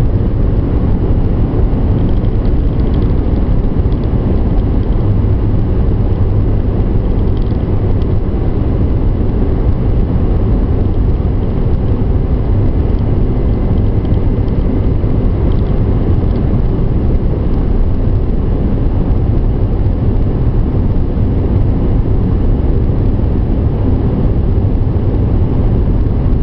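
Steady low road and engine noise heard inside a car's cabin as it drives at highway speed, with a few faint ticks now and then.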